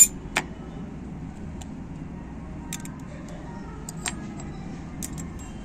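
A few short, sharp metallic clicks and taps from a screwdriver working the screw of a sewing machine's steel shuttle assembly, and its loosened parts knocking together. The sharpest click comes right at the start, with a steady low rumble underneath.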